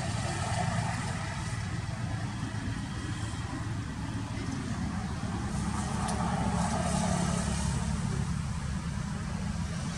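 Steady low rumble of motor-vehicle engines from road traffic, swelling slightly about six seconds in, with faint distant voices.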